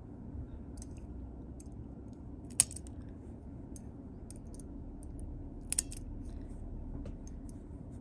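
Guillotine-style pet nail clippers snipping a cat's claws: two sharp snips about three seconds apart, with faint clicks of the clipper being handled between them.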